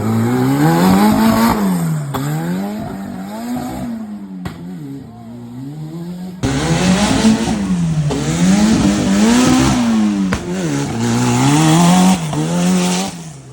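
Off-road racing buggy's engine revving up and down again and again, the pitch rising and falling every second or so. From about halfway through, a loud rushing noise joins it, and both drop away at the very end.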